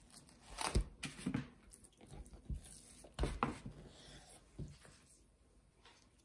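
Raw salmon fillet being handled on a wooden cutting board: several short soft thumps and rustles, about a second apart, as the white backing sheet is peeled from under the fish and a knife is worked along the flesh.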